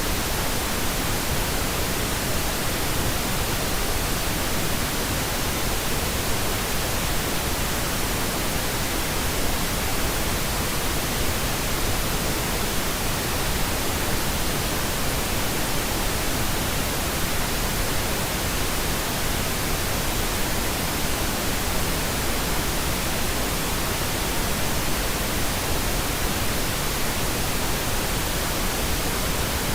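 Steady white noise: a constant, even hiss spread across all pitches, with no changes.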